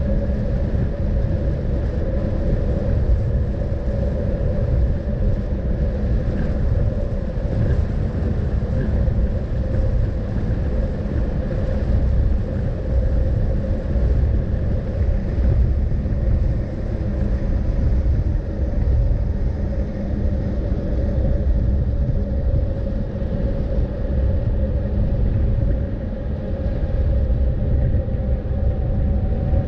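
Steady low rumble of a moving vehicle, road and wind noise with a constant hum running through it.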